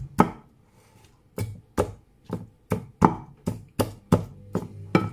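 A pestle pounding avocado in a bowl: one knock just after the start, a short pause, then a steady run of knocks at about two and a half a second as the avocado is mashed.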